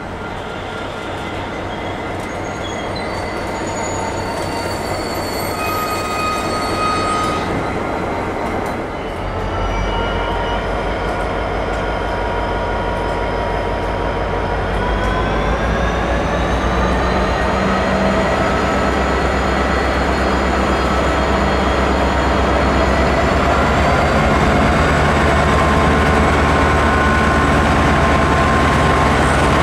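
Diesel freight locomotive and train approaching, growing louder. High-pitched squealing from the wheels comes first, then a deep engine drone sets in about nine seconds in, and several seconds later a whine rises in pitch as the engine works harder.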